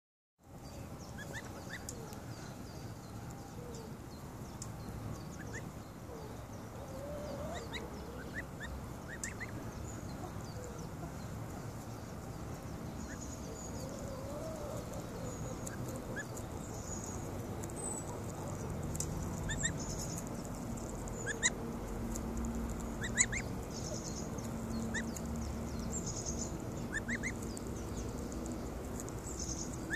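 Goose goslings peeping with short, high calls now and then as they graze, the calls a little louder in the second half.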